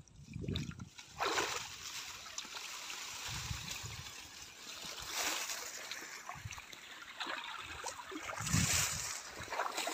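River water splashing and trickling as someone moves through it by hand, with louder splashes about a second in, around five seconds and near the end.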